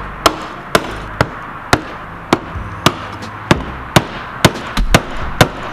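Sharp taps about twice a second as a screwdriver is struck against the plastic lock ring of a fuel pump module, driving the ring round until it locks onto the fuel tank.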